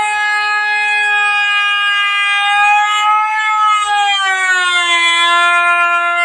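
Electric woodworking machine whining steadily at a high pitch, which drops a little about four seconds in.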